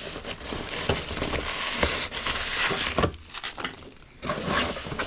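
Packing peanuts and a cardboard box being handled: scratchy rustling and crackling with small clicks, easing off for about a second about three seconds in, then picking up again.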